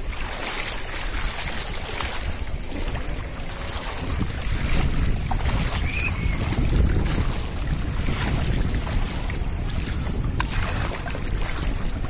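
Wind buffeting the microphone in gusts, over small waves lapping in shallow sea water.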